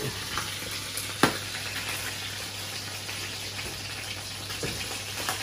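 Pieces of marinated conger eel sizzling as they fry in a pan, a steady hiss. A sharp metallic clack about a second in and a few lighter clicks come from metal tongs against the pan and plate.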